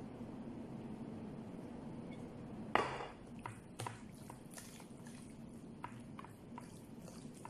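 A bare hand mixing oiled, seasoned chicken pieces in a disposable foil tray: one sharp rustling knock about three seconds in as the hand goes in, then small wet squishes and crinkles from the meat and tray, over a steady low hum.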